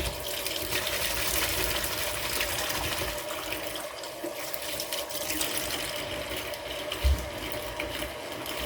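Hot water running steadily from a kitchen tap into a sink as it fills. A dull thump about seven seconds in.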